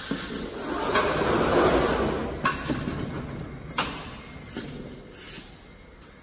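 Jug palletizer at work: a swell of machine running noise in the first half as the gripper moves, with a few sharp mechanical knocks and clacks, about three of them, dying down toward the end.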